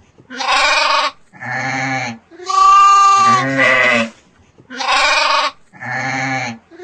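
Domestic sheep bleating: about six separate bleats with short gaps between them. Most are deep; a higher, clearer bleat comes about two and a half seconds in.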